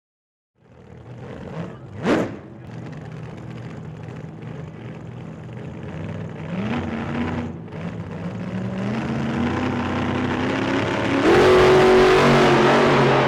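A motor engine speeding up, its pitch climbing in steps and growing louder, loudest near the end.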